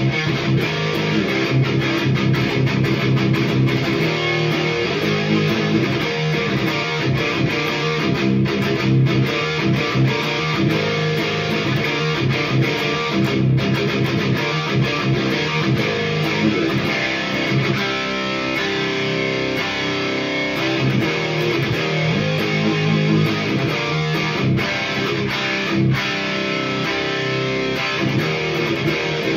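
Electric guitar in drop C tuning played through a Hiwatt Hi-5 five-watt tube amp (one EL84, one 12AX7) and two 1x12 cabinets with Celestion Vintage 30 speakers. It plays continuous high-gain metal riffs with no boost or overdrive pedal in front.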